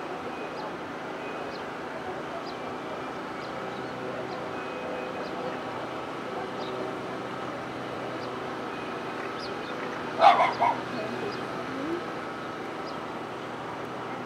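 A dog barking: a quick run of three or four loud barks about ten seconds in, over steady background noise.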